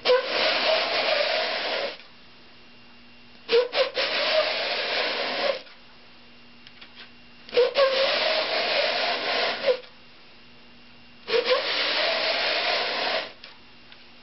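Wooden canoe half rubbed edge-down along a sheet of coarse 80-grit sandpaper laid flat on a bench, sanding the edge flat. There are four long strokes of about two seconds each, each opening with a knock as the piece is set down.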